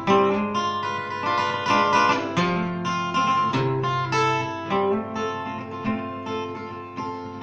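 Acoustic guitar played solo, chords picked and strummed in a steady rhythm with moving bass notes: an instrumental break with no singing.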